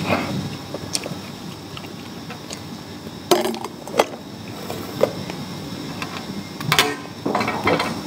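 A few sharp clicks and knocks of a plastic lunch container and its utensils being handled, with a longer clatter near the end.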